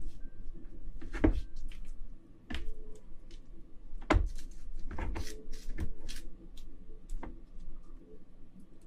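Gloved hands squeezing and mixing shredded king crab meat and tomalley inside the crab's shell: a string of irregular wet squishes and small clicks, close up.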